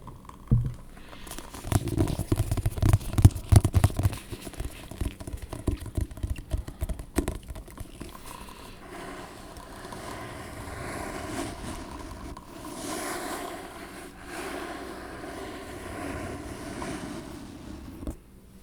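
Tapping and scratching on objects for ASMR: a run of rapid taps with dull low thuds over the first several seconds, giving way to steady scratching from about eight seconds in.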